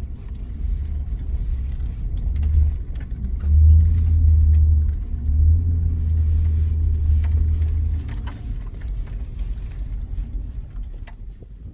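Car driving, heard from inside: a low rumble of engine and road, loudest in the middle, with light rattles and clicks. It dies down near the end.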